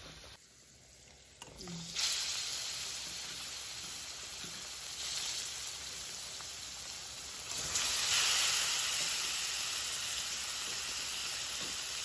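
Raw pork pieces sizzling as they drop into hot oil with garlic and turmeric in a wok. The sizzle starts suddenly about two seconds in and gets louder a little past the middle as more pieces go in.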